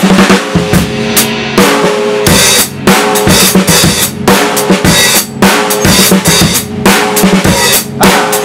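A drum kit being played: rapid snare and tom strokes over bass drum and cymbals, the drums ringing with a clear pitch between hits.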